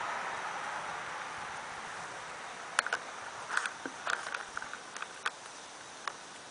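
A soft rustle of leaves in the wind fades away. Then comes a scatter of small, sharp clicks and ticks lasting about two and a half seconds, with one more click near the end.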